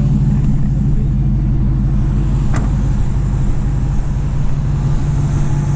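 Truck engine running steadily with a low hum. A single sharp click or clank about two and a half seconds in.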